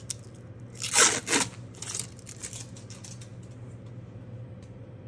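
Blue plastic protective film being peeled off a metal nail stamping plate: a loud ripping noise about a second in, then a few smaller crackles.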